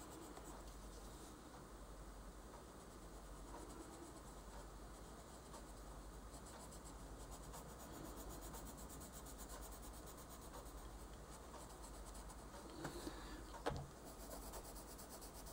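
Yellow coloured pencil shading on paper: soft, faint, continuous scratching strokes. A single light tap about fourteen seconds in.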